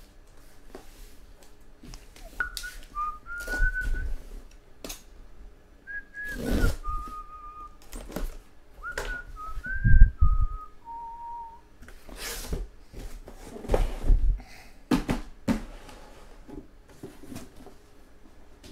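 Someone whistling a short tune of a few held notes, mostly stepping downward, while cardboard rustles and boxes are slid out of a shipping case. A box lands on the table with a thud about ten seconds in, the loudest sound here.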